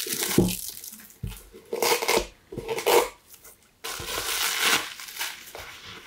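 Clear adhesive tape being peeled off a cardboard gift box, with plastic film rustling, in several short bursts of tearing and crinkling, the longest about four seconds in.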